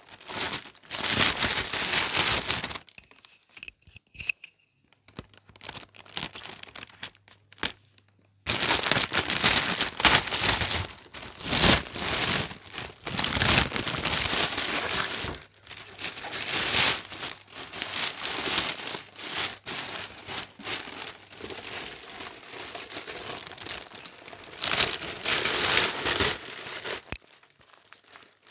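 A clear plastic bag crinkling and rustling in irregular bursts as it is worked off a rack power amplifier, with a quieter lull of a few seconds near the start.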